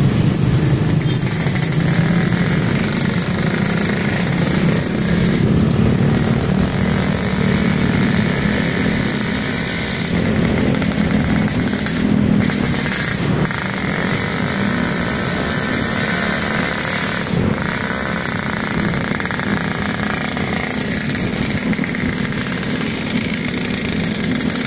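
Engines of a convoy of scooters and motorcycles running steadily at low speed, heard from one of the moving bikes.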